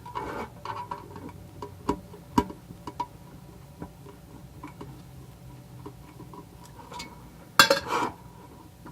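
Light metallic clicks and taps of a screwdriver working at the screws of a tin can muffler's sheet-metal shell, with a louder metal clatter near the end.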